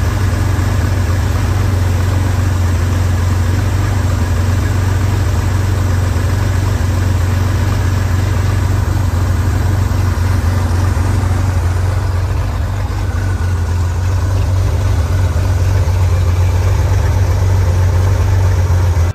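1966 Chevrolet Corvair's air-cooled flat-six engine idling steadily, running on fuel from a newly fitted electric fuel pump.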